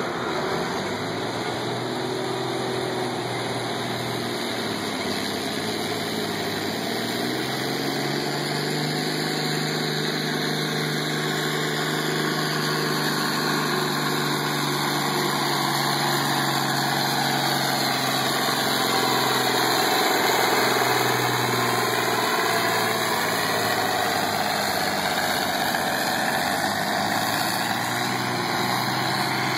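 International Harvester 1466 tractor's diesel engine running hard under load while pulling a weight-transfer sled. Its note climbs about seven seconds in and wavers as the pull goes on, with a high whine above it, and is loudest about twenty seconds in.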